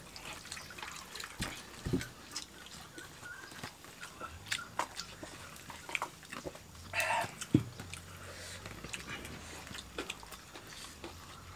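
Several people eating rice by hand: wet smacking and chewing, with scattered small clicks and one sharper knock about seven and a half seconds in.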